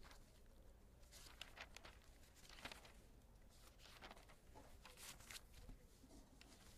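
Near silence: room tone with a low hum and faint scattered clicks and rustles.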